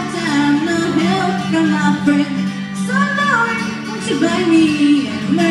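A woman singing into a microphone over an acoustic guitar, her voice gliding between held notes above the guitar's sustained chords.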